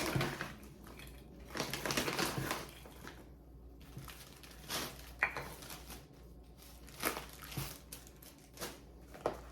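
Plastic snack baggies crinkling and rustling as they are handled, with scattered irregular clicks and taps.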